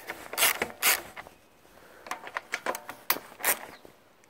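Socket ratchet clicking as a 10 mm bolt on a lawnmower's recoil starter cover is undone: two sharp clicks in the first second, then a scatter of lighter clicks.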